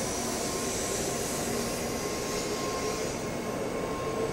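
Steady rushing hum of a Shinkansen train standing at a station, with a faint thin steady whine over it.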